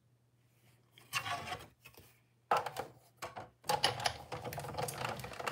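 Hands handling card and tools on a craft worktable: rustling and clicking that start about a second in, with a sharp loud knock around the middle, and turn into steady close clicking and rustling for the last couple of seconds.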